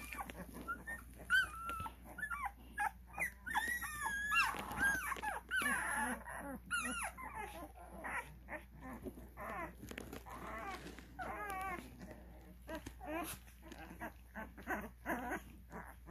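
A litter of twelve-day-old Cane Corso puppies whimpering: many short, high cries that overlap, thickest in the first half and thinning out towards the end.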